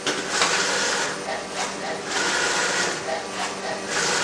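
Filotec automatic-load CNC scoring machine for circuit boards running, its loader arm and positioning drives whirring and hissing in uneven surges as a panel is handled.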